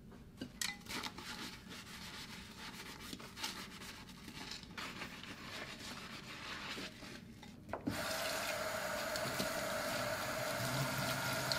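Soapy sponge scrubbing a ceramic plate in a stainless steel sink, with a few light knocks of dishes. About eight seconds in, the tap comes on and water runs steadily onto the dishes being rinsed.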